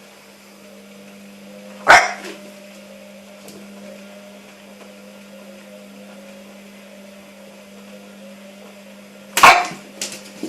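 British bulldog puppy barking sharply twice, about two seconds in and near the end, with a couple of smaller yaps after the second bark. Under the barks runs the steady hum of a running washing machine.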